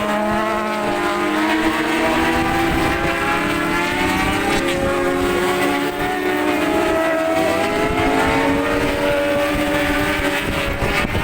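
Engines of several 600cc supersport racing motorcycles running hard together, their pitches rising and falling as they go through the gears.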